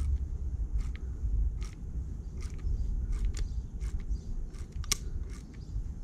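E-bike freehub turned by hand, its pawls ratcheting in about a dozen sharp, irregularly spaced clicks. The freehub still slips at times after repair.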